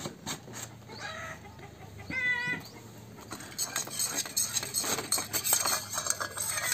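A hen clucking twice, short calls about one and two seconds in. From about halfway, a steel spoon scraping and clinking quickly against a small steel bowl as oil is spread around it.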